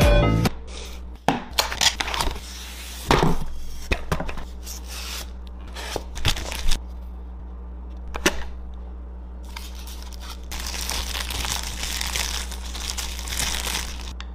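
A Pokémon box and its packaging being opened by hand: paper and card tearing and crinkling, with scattered sharp clicks and taps. A steady low hum runs underneath, and music stops about half a second in.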